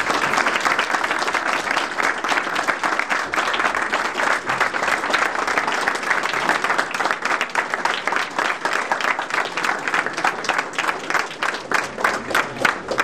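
Audience applauding, the dense clapping thinning into fewer, separate claps near the end.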